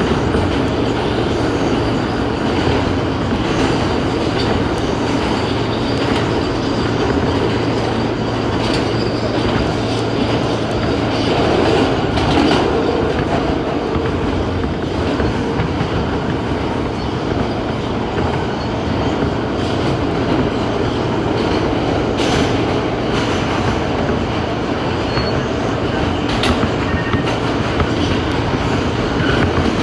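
New York City Subway A express train running at speed: a steady rumble of steel wheels on rail, with occasional sharp clacks over rail joints. A low hum holds through the first half.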